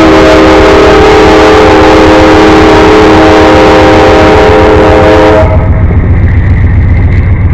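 Amtrak GE Genesis P42 diesel locomotive's air horn sounding a loud multi-note chord at close range, held steady for about five and a half seconds and then cut off. It is followed by the low rumble of the train rolling past.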